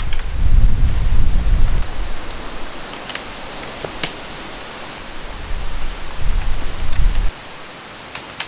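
Wind buffeting the microphone in gusts, at the start and again near the end, over a steady outdoor hiss. A few sharp clicks from tent poles being handled.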